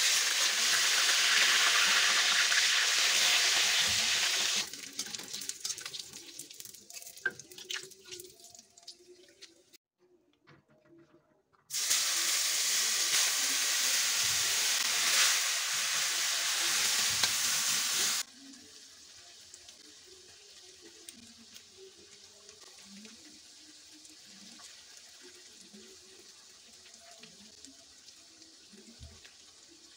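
Food frying in hot oil in a steel wok: a loud sizzle for about four seconds that dies down to crackles. After a short break, chopped red chili hits the oil with a loud sizzle for about six seconds, which then drops to a faint steady sizzle.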